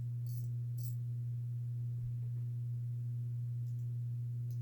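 Steady low hum, a single unchanging tone, with two faint light clicks in the first second.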